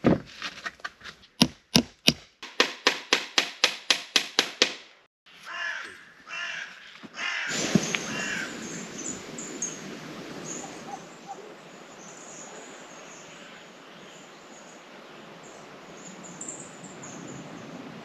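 Wood being chopped with a blade: a run of sharp blows that speed up to about four a second and stop about five seconds in. Then a steady forest background with birds calling and small high chirps.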